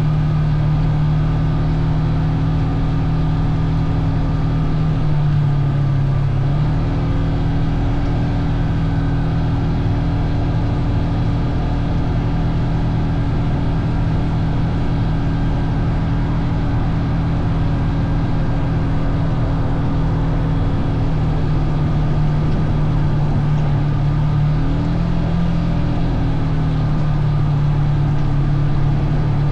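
Engine of the vehicle being ridden, running steadily with a constant drone; its note shifts slightly about six seconds in and again about twenty-five seconds in.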